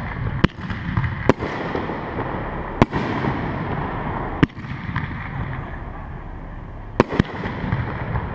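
Aerial firework shells bursting: six sharp bangs at uneven intervals, the last two in quick succession near the end, over a rumbling haze that carries on between them.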